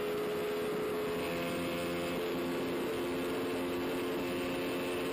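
Ducati Panigale 1199R's L-twin engine droning steadily at full speed in sixth gear, near 300 km/h, under heavy wind noise as heard from the rider's seat.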